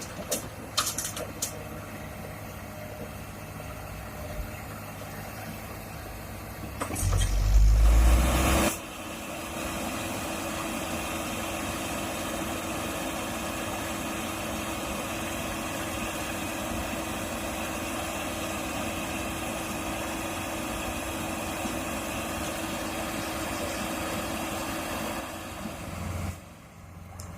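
Heavy diesel earthmoving machinery running steadily with a constant hum. There are a few sharp clicks near the start and a loud low rumble lasting about a second and a half around seven seconds in.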